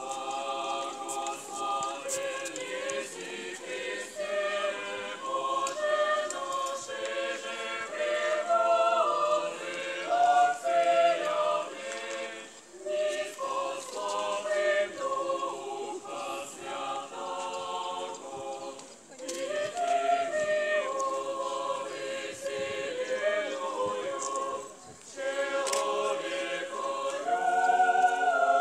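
Choir singing a cappella in several voice parts, in phrases with short breaks about 12, 19 and 25 seconds in.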